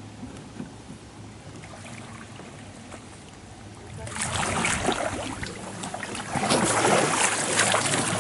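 Kayak paddle blades splashing in river water: faint water noise at first, then from about four seconds in loud, busy splashing as the paddles slap the surface and throw spray.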